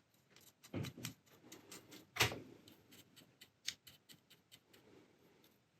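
Irregular light clicks and ticks from the acetal plastic mechanism of a Hobbylook 794 overlocker being greased with a brush and turned by hand, with a louder knock about two seconds in.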